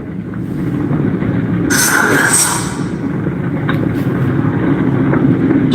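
Spirit box radio sweep: a steady rumble of static as the tuner scans through stations, with a loud burst of hiss about two seconds in and a few sharp clicks soon after.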